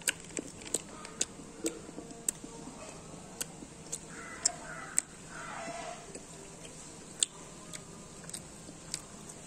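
Chewing of a mouthful of nut-filled Cadbury Dairy Milk chocolate, with scattered, irregular crunchy clicks as the nuts break.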